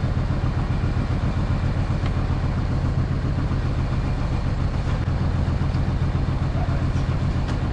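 Fishing boat's engine idling steadily, a constant low hum, with a few faint clicks over it.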